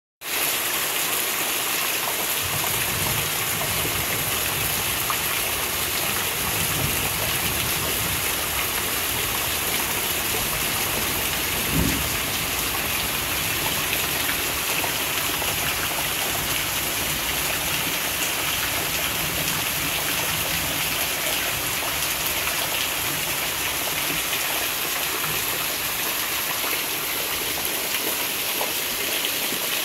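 Heavy rain pouring steadily onto leaves and a waterlogged path, a constant even hiss. A brief low thump about twelve seconds in.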